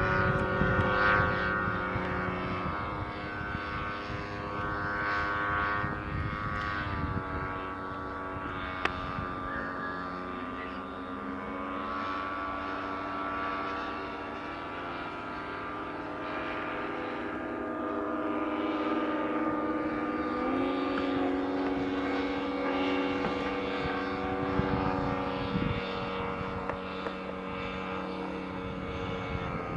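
Radio-controlled Extra 260 aerobatic model plane flying overhead, driven by its ZDZ 180 two-stroke petrol engine and propeller. The engine's note shifts up and down in pitch several times as the throttle changes.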